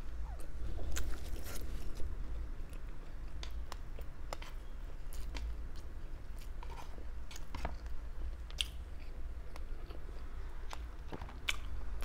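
A person chewing and biting Thai barbecue meat, with many small scattered clicks and smacks over a low steady hum.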